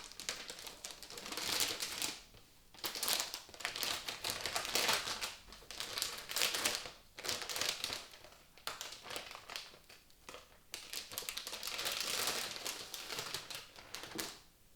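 Packaging being unwrapped and handled, crinkling and rustling in irregular bursts with short pauses, as the motherboard is taken out.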